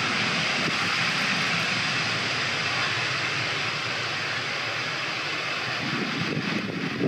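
ATR 72-600 twin-turboprop airliner's engines running, a steady rushing noise that eases slightly midway, with a low rumble building near the end.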